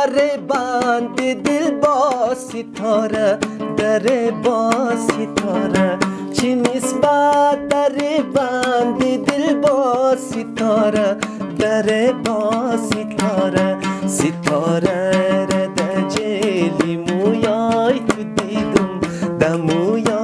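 Background music: a plucked string instrument with a wavering melody line over steady low notes.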